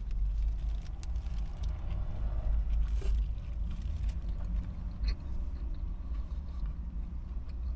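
Chewing and wet mouth noises of a man eating a burrito close to the microphone, with small clicks now and then, over a steady low rumble.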